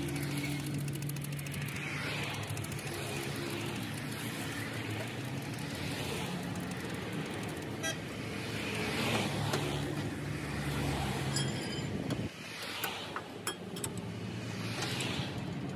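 Road traffic going by: a steady engine hum with vehicles swelling past every few seconds. The sound dips suddenly about twelve seconds in, and a few sharp metallic clicks follow.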